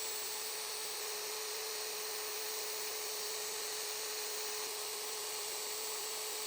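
Half-inch wood router running steadily, a constant whine on one pitch over an even hiss.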